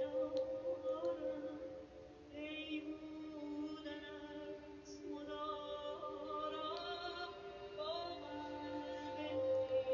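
Woman singing a slow Persian vocal line with wavering, ornamented turns between held notes, over sustained bowed notes from violins and cello.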